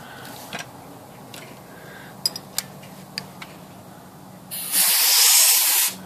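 Compressed-air blow gun hissing in one loud blast of a little over a second near the end, blowing out the type segment and typefaces of an electric typewriter after their solvent cleaning. Before it come a few light clicks and taps from brush work on the typefaces.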